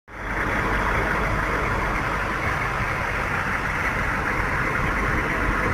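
An engine running steadily, with a low rumble under a steady hiss.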